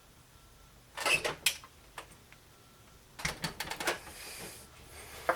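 Clicks and knocks of drive-cage and drive parts being handled inside a desktop PC case: a few sharp knocks about a second in, then a quicker run of clicks a little past three seconds.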